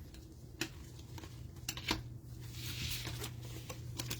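Trading cards being handled and flipped through by hand: scattered light clicks and taps, with a brief rustle of cards sliding against each other about two and a half seconds in, over a steady low hum.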